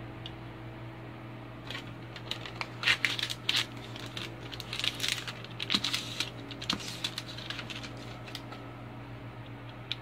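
A knife blade slicing through a sheet of paper: crisp crackling and rustling in bunches from about two to eight seconds in, over a steady low hum.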